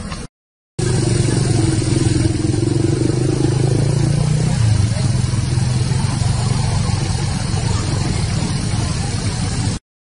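A motor vehicle engine running steadily, its low hum easing about four seconds in. The sound drops out briefly near the start and again near the end.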